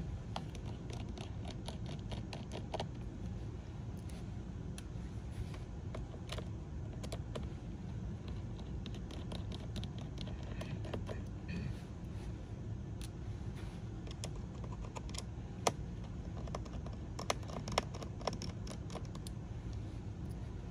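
Scattered small clicks and taps from hands and a small tool handling the opened ThinkPad X1 Carbon laptop's chassis and internal parts, over a steady low hum. A few sharper clicks come in the last few seconds.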